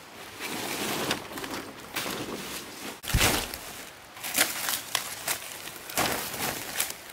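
Large fresh banana leaves rustling and swishing as they are handled and laid flat, with dry leaf litter crackling underfoot, in uneven bursts; the loudest rustle comes about three seconds in.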